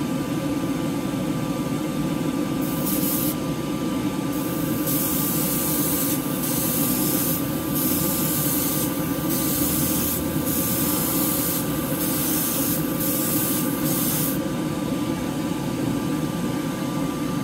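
Airbrush spraying acrylic paint in repeated short bursts of hiss, trigger pulled and released, over about twelve seconds. Under it, the spray booth's exhaust fan hums steadily throughout.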